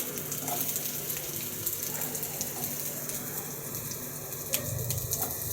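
Hot oil frying in a pan with a steady sizzle, with a few faint clicks from utensils near the end.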